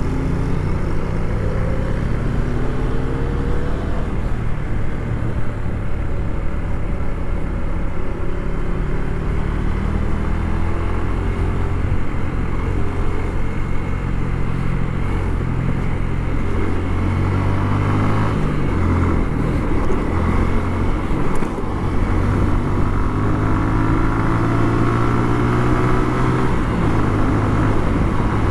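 Motorcycle engine running at road speed, its pitch rising several times as the rider accelerates, over a steady rush of wind and road noise.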